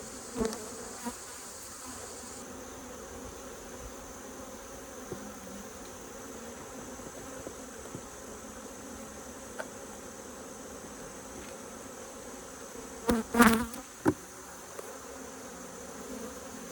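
Agitated honeybees buzzing steadily around the beekeeper's veil, a close, continuous hum from an opened hive whose bees are riled up. About 13 seconds in, a brief louder burst of knocks and buzzing cuts through.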